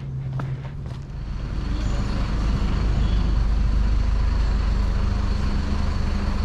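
Street traffic: a heavy vehicle's engine running close by, a low rumble that grows louder over the first couple of seconds and then holds steady.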